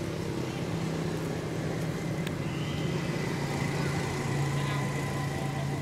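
An engine running steadily with a low drone, its pitch dropping slightly about four seconds in.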